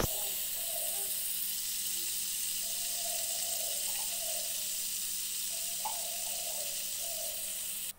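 Margarine sizzling steadily as it melts and bubbles in a hot non-stick wok, a constant frying hiss with a short click at the very start. It cuts off suddenly at the end.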